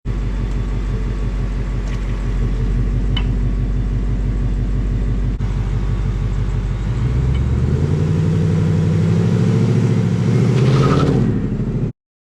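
2020 Ford Mustang GT's 5.0 V8 idling with a few faint metallic clicks, then revving up about seven seconds in and holding higher revs as it is brake-torqued. The owner hears a little metallic clinking on putting it in gear and wonders whether it comes from a brake caliper.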